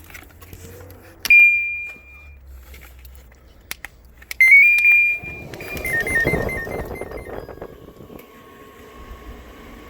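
Electronic beeps from a portable air conditioner's control panel as it is powered up and switched on: a long beep about a second in, another long beep past the middle followed by a short run of stepped tones. The unit then starts running with a steady hum near the end.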